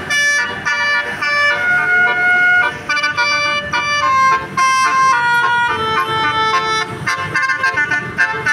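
Multi-tone bus air horn (telolet horn) playing a melody in quick successive notes.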